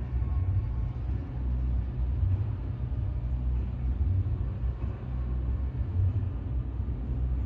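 Deep low bass from amplified event music, coming and going in swells with almost nothing above the low end, the kind of noise that carries from a venue into nearby homes.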